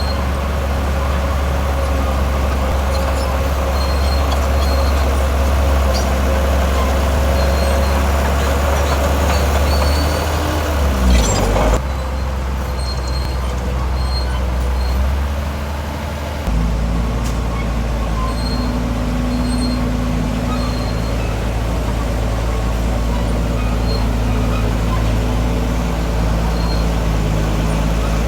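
Heavy diesel construction machinery running steadily under load. About eleven seconds in there is a brief loud burst with a falling sweep, and a few seconds later the low engine note shifts to a new steady pitch.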